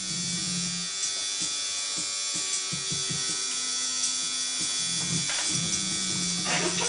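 Electric tattoo machine buzzing steadily, its low hum cutting out and back in as it is switched off and on.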